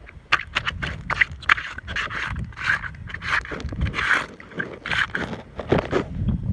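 Handling noise: the phone rubbing and scraping against cloth shorts in a string of irregular scratches and clicks, with steps crunching on gravel.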